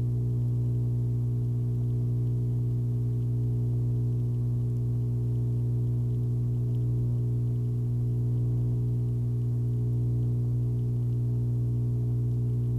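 A steady low hum: one strong low tone with a stack of overtones above it, unchanging in pitch and level.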